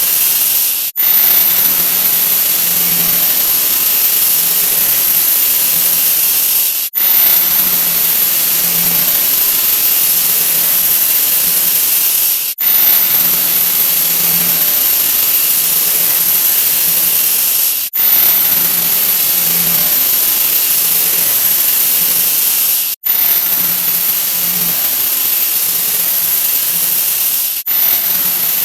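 A 'wah wah' sound effect sped up so far that it has turned into a loud, steady hiss like a jet engine. Short gaps break it about every five seconds, each slightly closer to the last, where one faster repeat ends and the next begins.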